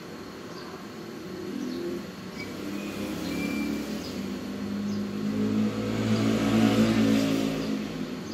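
A motor vehicle's engine running, growing louder to its loudest about seven seconds in and then dropping away, with faint short high chirps about once a second.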